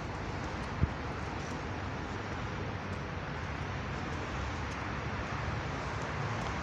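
Steady outdoor street noise: an even hiss over a low, unsteady rumble, with one thump just under a second in.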